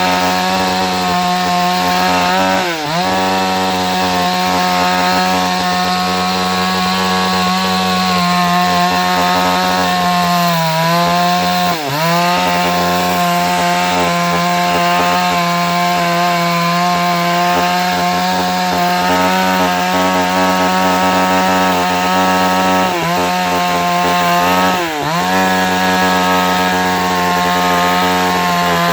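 Two-stroke chainsaw running at high speed, cutting wood. Its engine note briefly sags in pitch and recovers several times: about three seconds in, twice around eleven to twelve seconds, and twice in the mid-twenties.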